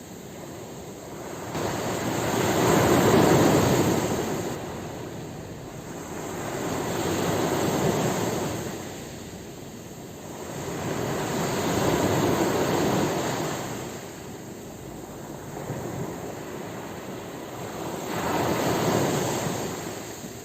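Ocean waves washing onto a shore: four swells of surf noise that rise and fall about every five seconds.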